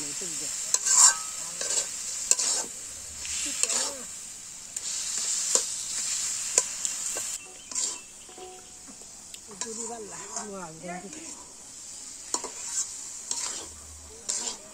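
A steel spatula stirring and scraping thick mango pickle around a steel karahi, in irregular strokes, over a steady sizzle of hot oil.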